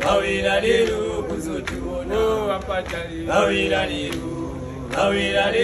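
A group of men singing a rhythmic chant together, the phrase coming round again about every one and a half to two seconds.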